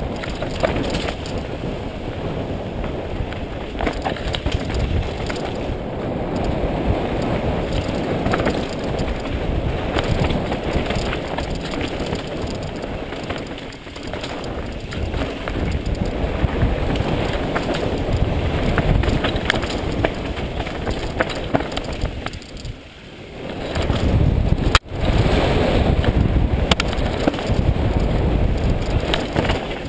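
Wind buffeting the camera microphone over the rattle and jolts of a mountain bike riding fast down a rocky forest trail. There is a brief dip in level about three quarters of the way through, then a sudden short dropout.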